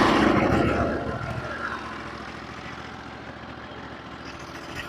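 Norwood HD36v2 sawmill engine just started, loud at first and then settling within about a second and a half into a steady idle while it warms up.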